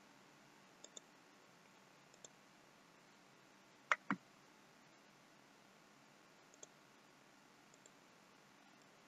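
Computer mouse button clicks in near silence: a few faint single clicks, and a louder double click about four seconds in.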